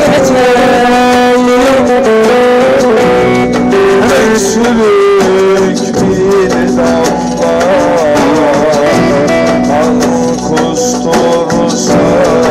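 Live Turkish Roma music amplified through a PA: a man sings into a handheld microphone over an instrumental accompaniment.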